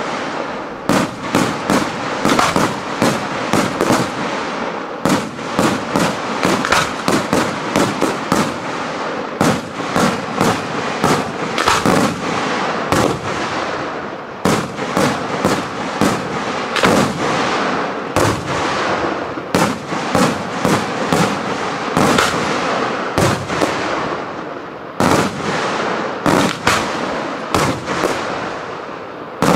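A Neapolitan-style daytime fireworks battery firing: a continuous barrage of sharp bangs from salutes bursting in the air, a few reports a second over a constant crackle, with brief lulls around the middle.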